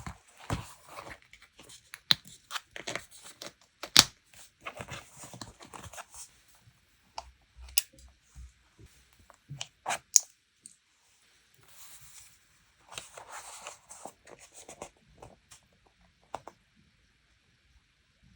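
Paper being handled for journaling: intermittent rustling and crinkling with scattered sharp taps, the loudest about four seconds in and another about ten seconds in.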